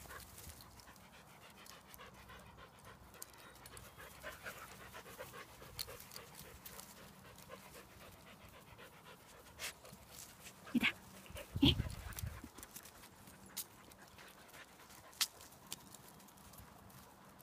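A dog panting, with scattered light ticks and two short, louder thumps a little past the middle.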